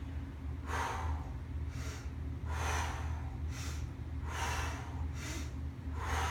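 A woman breathing audibly in and out, a breath about every second, in time with resistance-band pull-apart reps. A low steady hum sits underneath.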